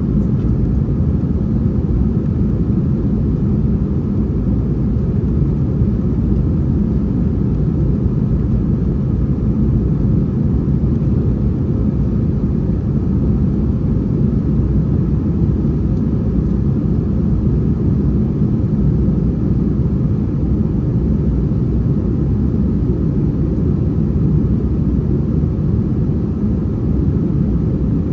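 Steady low rumble inside the cabin of an Airbus A321-231 airliner: the jet engines and the airflow over the fuselage, even and unbroken throughout.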